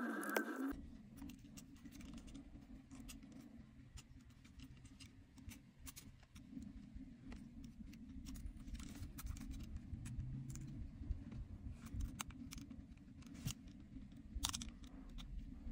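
Scattered small clicks and light handling noises from tools working on a smartphone during a battery replacement, over a steady low hum.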